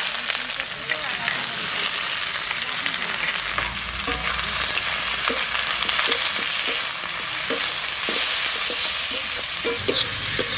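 Sliced onions sizzling as they fry in hot mustard oil in a wok. They are stirred with a spatula that clicks and scrapes against the pan now and then.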